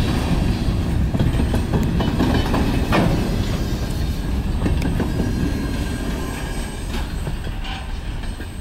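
Freight train covered hopper cars rolling past, their steel wheels rumbling and clicking over the rails, with a sharp clank about three seconds in. The sound fades gradually over the last few seconds as the end of the train moves away.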